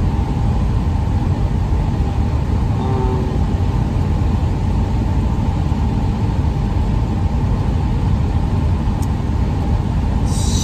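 Steady road and engine rumble inside a van's cabin while driving, with air conditioning running.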